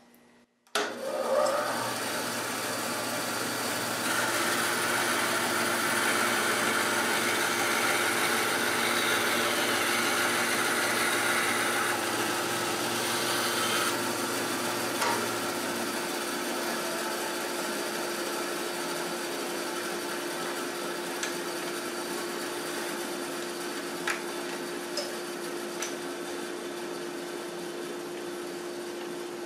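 A bandsaw switches on about a second in and runs steadily while its 14 teeth-per-inch, half-inch blade crosscuts a clamped wooden board. The cutting noise is brightest for about ten seconds and eases after about 14 seconds, while the saw keeps running.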